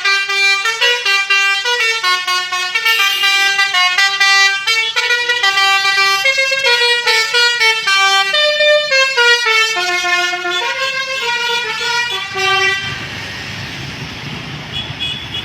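An Indonesian 'telolet basuri' multi-tone bus air horn plays a quick melody of stepping notes, one after another. It stops about 13 seconds in, leaving a steady rumble of background noise.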